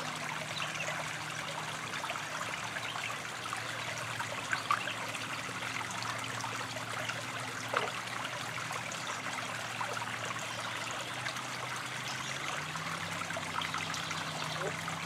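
Shallow creek trickling steadily over stones.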